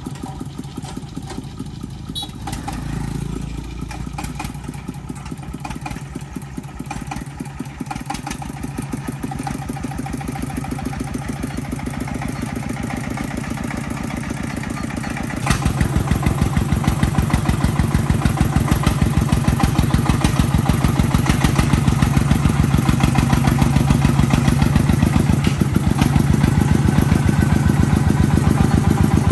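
Farm vehicle's engine running with a fast, even beat of firing pulses, becoming clearly louder about halfway through.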